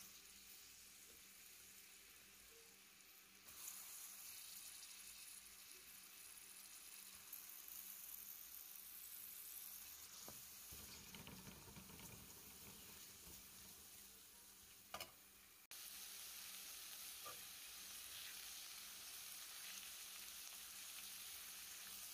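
Sliced onion, cabbage and capsicum sizzling in hot oil in a frying pan as they are stirred with a spatula: a faint, steady frying hiss. The hiss jumps in level about three and a half seconds in and again near sixteen seconds, with a short click just before the second jump.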